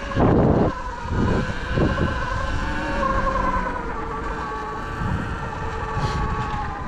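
Sur-Ron Light Bee X electric dirt bike riding, its electric motor giving a steady high-pitched whine with slight rises and falls in pitch. A short loud rush of noise comes just after the start.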